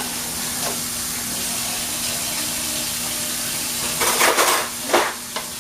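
Spaghetti with meat sauce sizzling in a pan on the stove, a steady hiss over a faint steady hum. About four seconds in come two louder scraping bursts of a utensil stirring in the pan.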